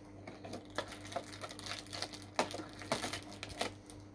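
Cardboard calendar door being opened and its contents handled: scattered light clicks and taps, over a faint steady hum.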